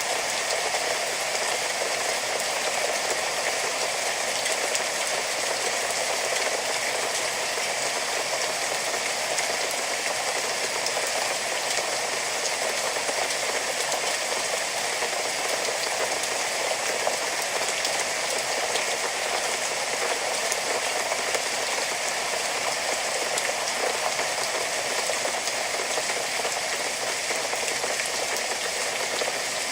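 Steady rain: an even hiss of countless drops falling, with fine pattering running through it.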